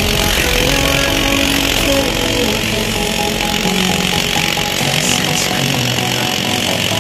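Electric demolition hammer (INGCO) with a chisel bit pounding into broken concrete, giving a loud, steady, rapid hammering rattle.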